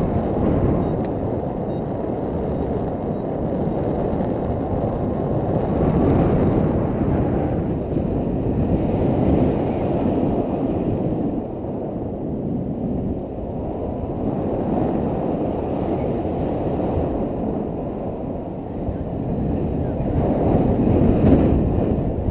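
Airflow of paragliding flight buffeting a foot-mounted GoPro Hero2 in its housing: a steady low rumble of wind noise that swells and eases as the pilot turns, strongest near the end.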